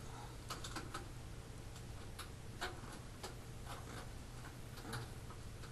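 Faint, irregular clicks and small knocks of something being handled, over a steady low hum.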